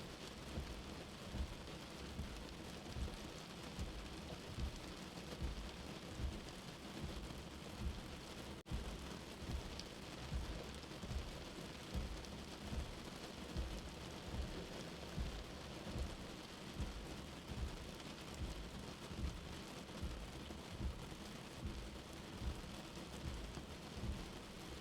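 Steady, even rain hiss with a low, soft heartbeat thumping underneath, about one beat every second and a half.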